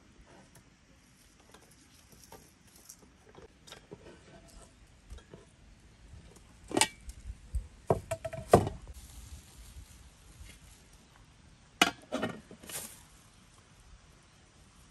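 Irregular knocks, taps and clatters of objects being handled. The loudest, sharpest knocks come in a cluster about seven to nine seconds in and again around twelve seconds.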